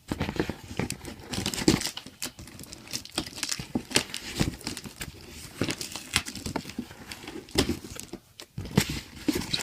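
A cardboard box and its packing being handled and pulled open by hand: irregular crinkling and rustling, with tearing and sharp scrapes and taps.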